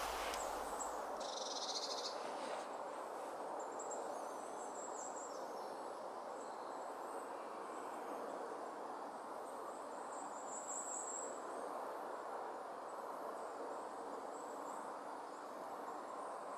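Calm outdoor ambience: a steady soft hiss of background noise, with a few faint, very high chirps about two seconds in and again about ten seconds in.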